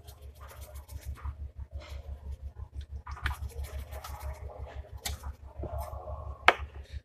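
Hands seasoning raw chicken pieces in a dish: scratchy rustling and handling with scattered small clicks, and one sharper click about six and a half seconds in.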